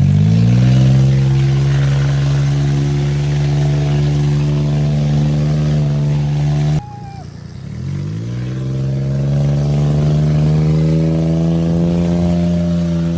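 A vehicle engine speeding up, its pitch climbing for about a second and then holding steady. It cuts off abruptly about halfway through, then climbs and settles into the same steady run again.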